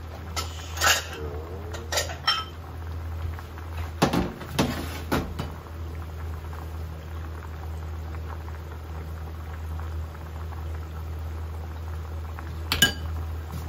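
A pot of pasta water at a rolling boil over a steady low hum. Sharp clinks and knocks of kitchen utensils and pans come about a second in, around four to five seconds in, and once near the end.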